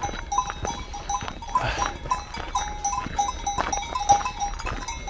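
Bells on grazing sheep clinking irregularly, with short ringing notes at two pitches repeating several times a second.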